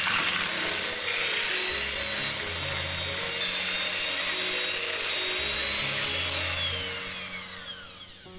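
Electric hand mixer whipping a thick cream mixture with twin wire beaters: a steady motor whine with a rushing hiss, which winds down with a falling pitch from about six seconds in as the mixer is switched off. Background music plays underneath.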